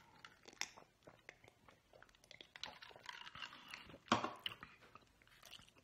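Faint close-up mouth sounds of a person drinking and then chewing: small wet clicks and smacks, with one louder mouth sound about four seconds in.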